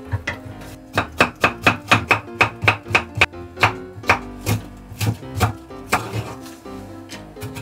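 Kimchi being cut, a quick even run of sharp strokes about five a second, then a few slower ones, over background music.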